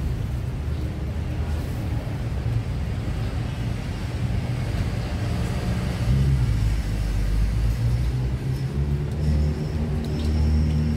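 Road traffic rumbling, with motor vehicle engines passing close by and growing louder about six seconds in and again near the end.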